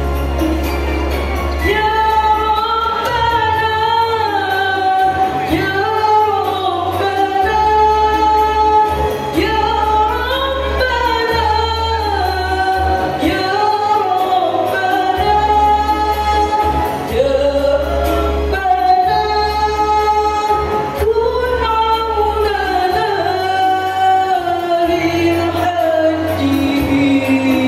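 Women's choir singing a slow, flowing melody together, with low bass notes from an accompaniment underneath that change every couple of seconds.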